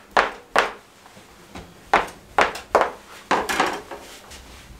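A cleaver chopping through soft samosa dough and knocking on the table top: a series of sharp knocks, two quick ones, a pause of about a second, then four more in quicker succession.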